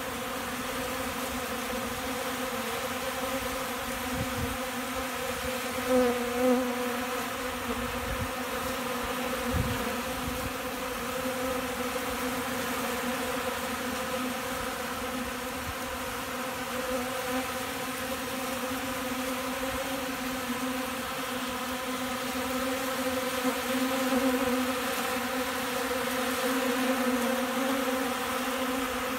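Many honeybees buzzing close by in a steady drone, a low hum with several overtones. It swells briefly about six seconds in.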